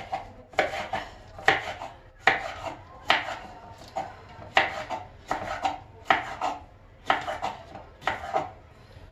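A kitchen knife slicing long green peppers into rings on a wooden cutting board: a steady series of crisp crunching cuts, a little over one a second, each knife stroke going through the pepper flesh and tapping the board.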